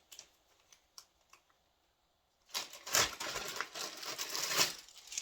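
Packaging crinkling and rustling as a mailed package is opened by hand: a few light clicks, then about halfway through a dense crackling rustle that lasts a couple of seconds.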